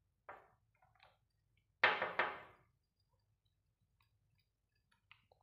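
Small plastic paint bottles being handled and set down. There is a short scrape just after the start, a louder double scrape about two seconds in, then a few faint clicks.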